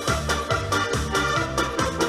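Instrumental break of an upbeat pop backing track: electronic keyboard chords over a bass line with a steady beat of about four strokes a second.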